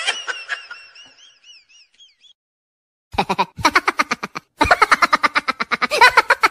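Cartoon sound effects: a wobbly boing that quivers up and down and fades over about two seconds, then, after a short silence, a rapid stuttering comic sound effect with many quick pulses.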